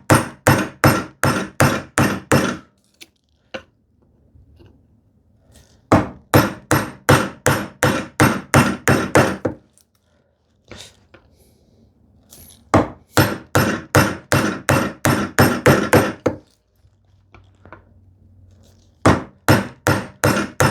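Bevel-edge chisel being struck in quick runs of blows, about three or four a second, chopping a mortise into a wooden leg. Four runs of blows, each a few seconds long, with short pauses between them.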